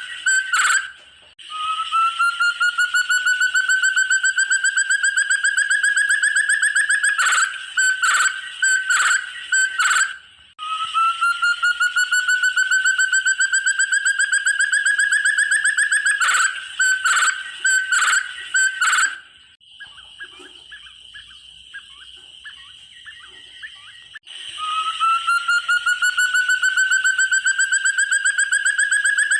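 Forest partridge (puyuh hutan) calling: long rapid runs of whistled notes that rise steadily in pitch over about six seconds, each followed by a few louder separate notes. The run comes three times, with a quieter stretch of about four seconds after the second group of separate notes.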